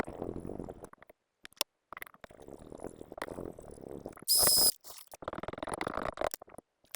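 Chef knife blade scraped in strokes across a diamond sharpening plate, a gritty grinding with short pauses between passes. About four seconds in comes a brief, loud hiss with a thin high whine.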